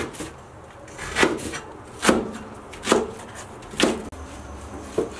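Chinese cleaver slicing vegetables on a wooden cutting board: single knife strokes landing on the board about once a second, six in all.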